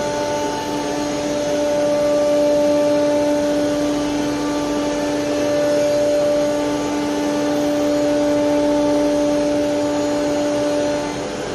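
Multi-head CNC wood router running, its spindles giving a steady whine over the hiss of the cut as they carve a wood board. The whine stops near the end.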